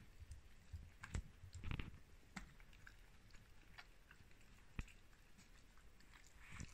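Siberian husky chewing a chew bone: faint, scattered crunches and clicks of teeth on the bone, a few sharper ones spread over several seconds.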